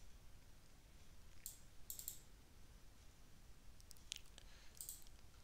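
Near silence: room tone with a few faint, short clicks of a computer mouse, in small groups around the middle and near the end.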